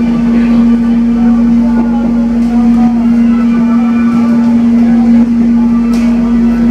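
Inside a moving airport-rail-link electric commuter train carriage: a loud steady hum that holds one pitch, over the carriage's running noise, with faint voices mixed in.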